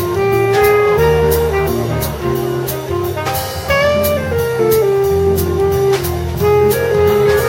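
Live jazz sextet playing: a horn carries a melody of held notes that step up and down, over bass and drums with steady cymbal strokes.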